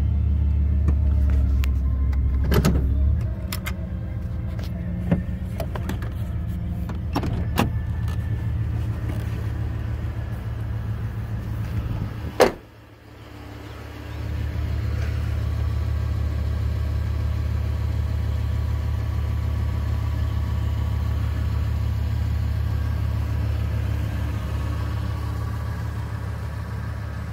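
Car engine idling: a steady low hum with a few light clicks. One sharp click comes about halfway through, the sound drops out briefly, then the steady idle hum returns.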